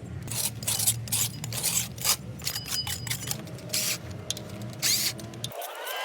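Heavy-equipment workshop noise: a steady low machine hum with many short, irregular bursts of tool scraping and clanking. The hum cuts off near the end and background music comes in.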